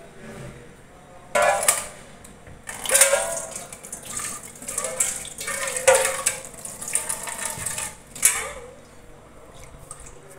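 Water splashing and steel kitchen vessels clattering in several loud bursts, the longest about three seconds in.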